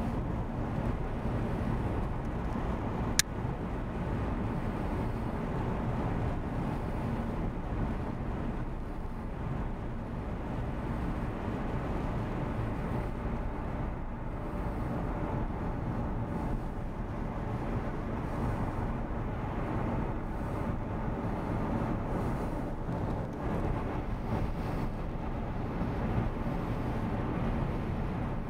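A car driving, heard from inside the cabin: steady engine and tyre rumble on a snow-covered road. One sharp click about three seconds in.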